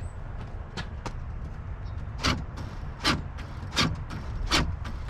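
Newly replaced rear electric door lock actuator of a 2007 Chevy Silverado Crew Cab cycling the lock: a series of short, sharp clunks, four of them evenly spaced under a second apart in the second half, showing the lock now works.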